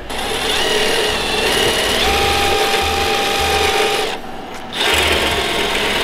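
Cordless drill spinning a wire brush against the gas burner parts of an absorption fridge, scrubbing carbon off the burner. It runs, stops briefly about four seconds in, then runs again.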